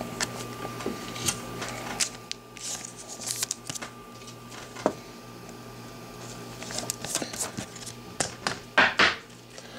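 Trading cards being handled: cards sliding and shuffling against each other, with small clicks and plastic scrapes as a card goes into a rigid clear plastic holder. The sounds come in irregular clusters, busiest near the start and again toward the end.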